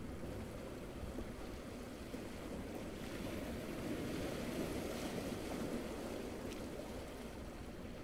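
Small waves washing onto a beach, one wash swelling up in the middle and easing off again, over a low steady rumble.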